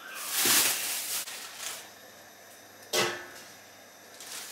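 Plastic bag of momos rustling and crinkling for about a second, then a single metal clink about three seconds in as a stainless steamer tier is set onto the pot.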